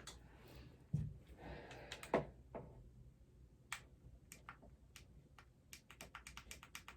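Small objects being handled and set down: a low thump about a second in, a brief rustle with a sharp knock, then a quick run of light clicks and taps.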